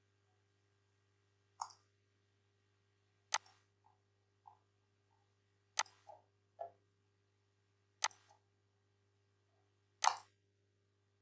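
Computer mouse buttons clicking: five sharp clicks one to two and a half seconds apart, with a few softer clicks between them, over a faint steady low hum.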